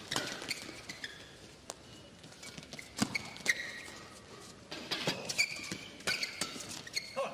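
Badminton rally: sharp racket strikes on the shuttlecock at irregular intervals, with short shoe squeaks and footsteps on the court between them.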